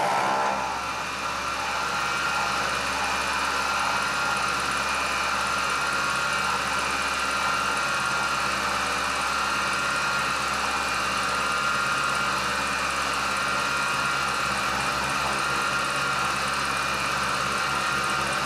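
Grizzly G0704 CNC mill's spindle and end mill making a continuous side cut in aluminum at 1100 RPM, 0.133-inch width of cut, fed at 6 inches per minute. The sound is a steady, even machining tone with a high ringing pitch that holds constant. The spindle is under load, pulled down to about 1040 RPM.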